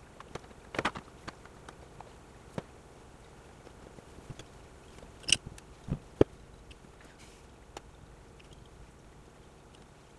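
Hands handling a glass jar and freshly set alginate gel strings: sparse light taps and clicks, with a brief cluster about a second in and a few sharper knocks around five to six seconds in.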